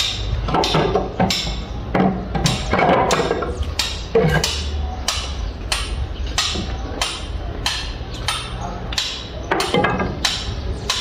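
Hammer blows struck in a steady rhythm, about two a second, over a constant low rumble.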